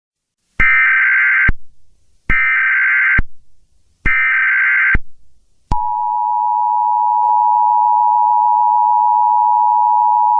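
Emergency Alert System SAME header: three short bursts of warbling digital data tones, each just under a second long, followed about six seconds in by the EAS two-tone attention signal, a steady dual tone.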